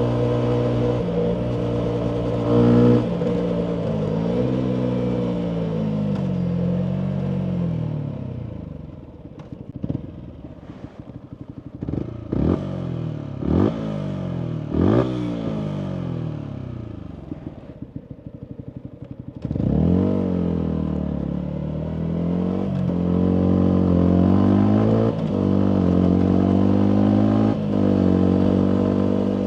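Yamaha MT125's single-cylinder 125 cc four-stroke engine through a full Akrapovic exhaust. It runs at cruise, then coasts down with the revs falling, and idles low with a few sharp pops. At the idle it is blipped three times in quick rising-and-falling revs. About twenty seconds in it pulls away hard, revving up and dropping back with each upshift.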